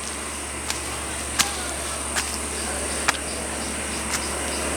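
Footsteps on hard stone or tiled steps, five short clicks about a second apart, over a steady low hum and a high, even insect hiss.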